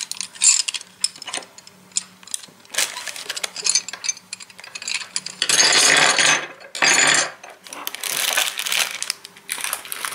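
Crochet hooks with metal shafts and pink handles clicking and clattering against each other and on a wooden table as they are handled and laid out in a row, with a few longer stretches of scraping noise.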